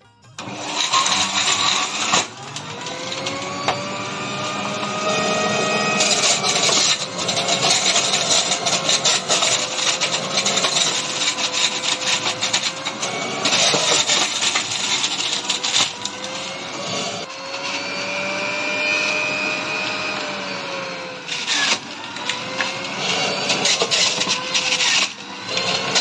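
Electric centrifugal juicer starting up and running loudly as peeled orange segments are pressed down its chute. Its motor whine rises and falls in pitch, with gritty grinding from the fruit on the spinning grater.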